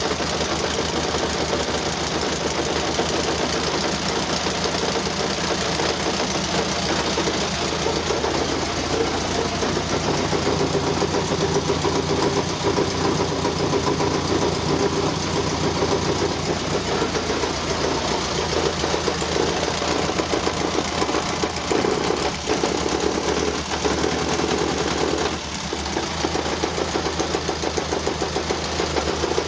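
1935 Austin Seven Nippy's small four-cylinder side-valve engine running steadily with a rapid, even rhythmic noise that the owner calls terrible; the level drops briefly about 25 seconds in.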